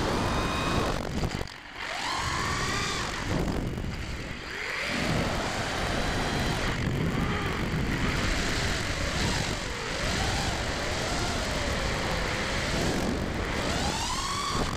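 The four ZMX Fusion 2205 2300kv brushless motors and three-blade HQProp 5040 propellers of a 5-inch FPV racing quadcopter whine in pitch glides that rise and fall with throttle, over a rush of wind. The sound drops away briefly about a second and a half in, then climbs back.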